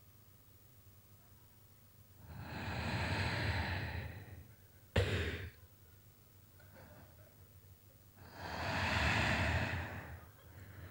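A man breathing heavily into a handheld microphone: two long breaths a few seconds apart, with a sharp click between them. He is mimicking someone breathing over a public-address speaker without saying a word.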